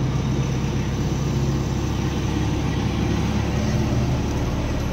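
Eicher Pro 2114XP truck's four-cylinder diesel engine running steadily on the move, with tyre and road noise, heard from inside the cab.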